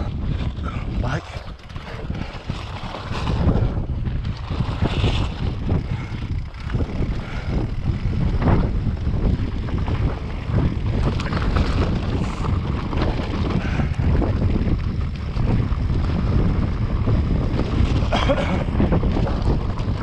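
Wind buffeting an action camera's microphone while a mountain bike rides down a gravel track, with a steady rumble and frequent short rattles and crunches from the tyres and bike over the stones.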